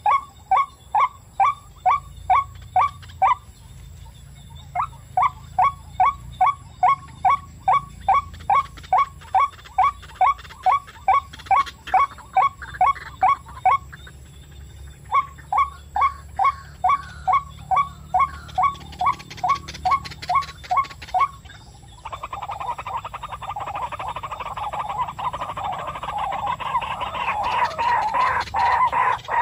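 White-breasted waterhen calling: a long series of evenly repeated short notes, about three a second, in three bouts with brief pauses. About 22 s in, it switches to a denser, rougher chattering that grows louder toward the end.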